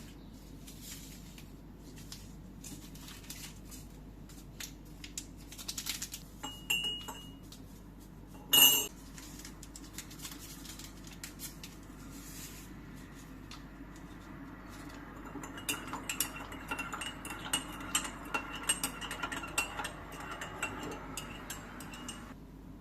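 Dishes and cutlery clinking and clattering: scattered light clicks, a loud ringing clink about nine seconds in, then a run of quick ringing clinks over the last several seconds.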